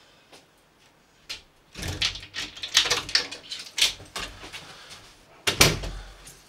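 A front door being unlocked and opened: a run of clicks and rattles from a key in the lock and the door, then one sharp knock near the end as the door shuts.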